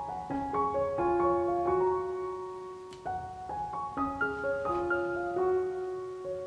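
Background piano music: a melody of notes played one after another over held chords.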